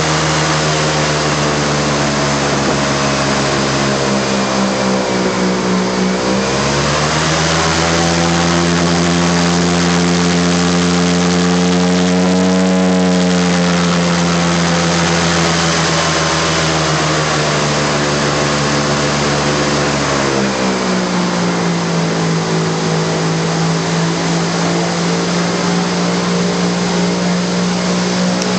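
Airboat engine and propeller running steadily. The engine speeds up about six seconds in, holds a higher pitch, and eases back down about twenty seconds in, over a steady hiss of propeller wash.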